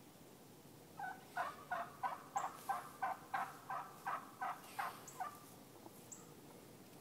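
Wild turkey hen yelping: a steady run of about a dozen short calls, roughly three a second, starting about a second in and stopping after about five seconds. Hens calling like this are calling the flock back together.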